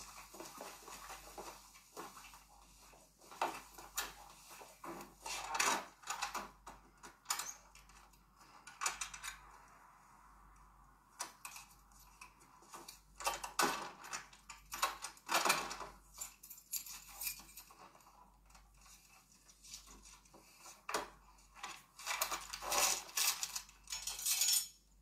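Irregular clinks, rattles and clatter of kitchen items (bottles, utensils, packets) being grabbed off a counter and handled, heard through a TV speaker.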